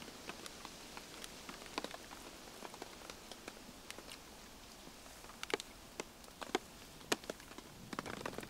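Steady rain falling, with heavier drops tapping close by at irregular intervals, more of them near the end.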